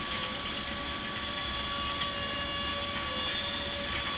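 Freight train of tank cars rolling steadily past, its steel wheels on the rails giving a continuous rumble with a steady high-pitched whine and a few faint clicks.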